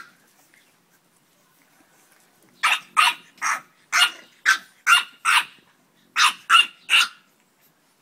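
Dog barking: a quick run of about seven sharp barks, a short pause, then three more.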